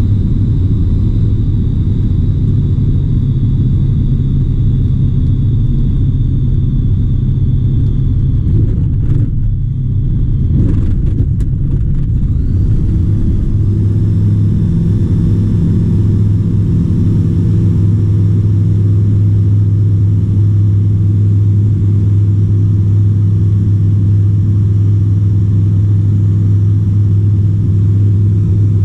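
Dynamic WT9 light aircraft's engine and propeller, heard from inside the cockpit, running loud and steady during a touch-and-go. A few short knocks come about 9 to 12 seconds in; then, about 13 seconds in, the engine note changes and holds a steadier, slightly louder drone through the takeoff roll and climb.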